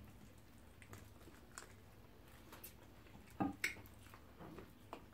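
Quiet chewing and biting of chicken and soup-soaked fufu, with scattered small wet mouth clicks and one brief louder mouth sound about three and a half seconds in.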